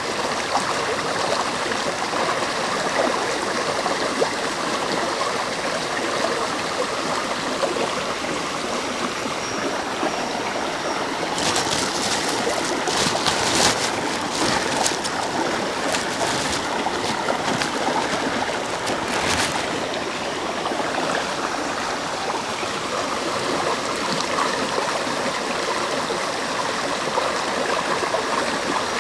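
Shallow rocky stream flowing steadily. Just before halfway there is a run of crackly plastic rustling lasting several seconds, from hands going through a plastic bag in a basket.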